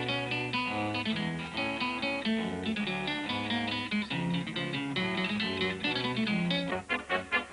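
Music led by a plucked guitar, playing a quick run of short notes over a bass line.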